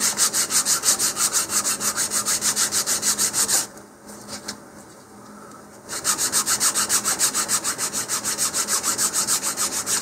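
A sealed wooden model-rocket fin being sanded with 220-grit sandpaper on a sanding bar: quick back-and-forth rasping strokes, about six a second. The strokes pause for about two seconds near the middle, then resume. This is the final light sanding that knocks down blobs of dried sanding sealer.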